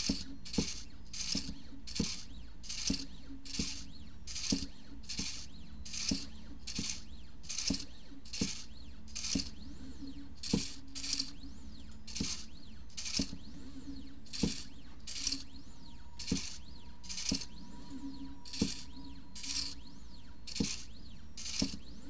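midTbot ESP32 pen plotter drawing short strokes: about one stroke a second, each a sharp click with a brief high rasp, over a steady low hum from the machine.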